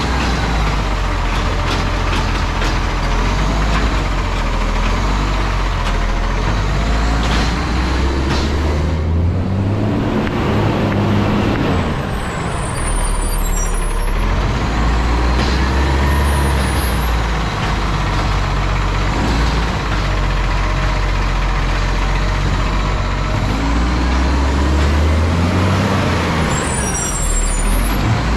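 Garbage truck's diesel engine running loudly, revving up and back down about nine seconds in and again near the end.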